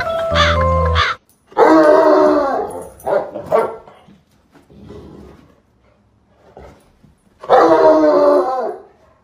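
Dog barking during rough play: a long drawn-out bark, two short ones, a faint one, then another long bark near the end. Music plays for about the first second and cuts off.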